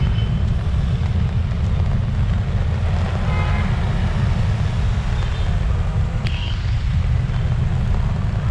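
Typhoon wind buffeting the microphone with a heavy, steady rumble, over the hiss of driving rain and traffic on a flooded road. A brief sharp click with a short high chirp comes about six seconds in.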